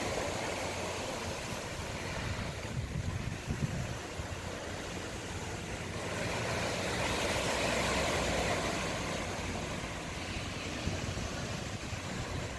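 Sea surf washing on the shore, with a swell of breaking water about halfway through and wind rumbling on the microphone.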